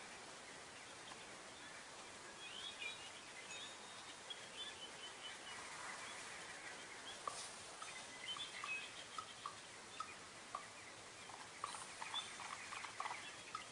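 Faint birdsong and outdoor ambience played through a tablet's speaker: scattered short chirps over a steady hiss, with a run of small ticks in the second half.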